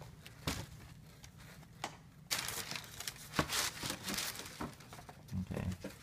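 Tissue paper crinkling and rustling as a sneaker is pulled out of its cardboard shoebox. There are a few sharp clicks at first, and the rustling gets heavier and more crackly from about two seconds in.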